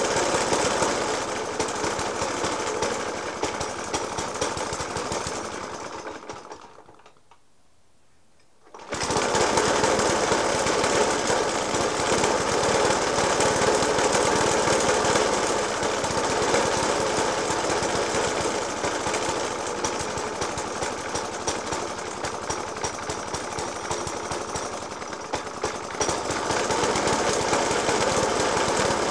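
Suffolk Punch 30S lawnmower petrol engine, with a Dell'Orto FHC 20 carburettor, idling roughly with heavy banging. The banging persists despite a new spark plug, a decoke and a cleaned carburettor. About six seconds in the sound fades away, and after about two seconds it comes back suddenly.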